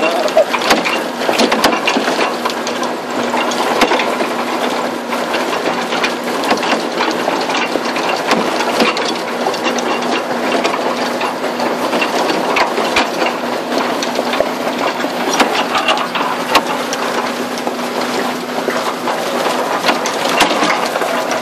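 Hydraulic excavator travelling on its crawler tracks, heard from the cab: a steady diesel engine hum under continuous rapid clattering of the track links.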